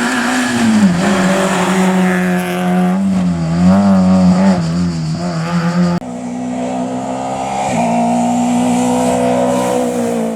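Rally car engines running hard on a stage, the engine note rising and falling with throttle and gear changes. About six seconds in there is a sudden cut to another car holding a steadier engine note that eases off near the end.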